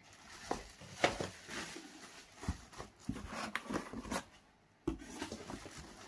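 Plastic packaging bags crinkling and rustling as hands handle them in a cardboard box, with a few sharper crackles and knocks, the loudest about a second in.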